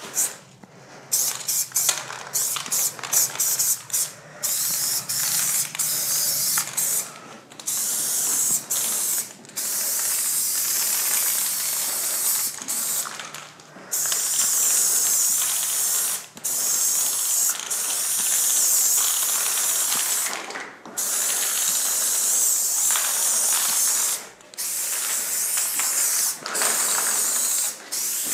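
Aerosol spray-paint can hissing, first in many short bursts, then from about a quarter of the way in in longer passes of a few seconds each with brief pauses between them.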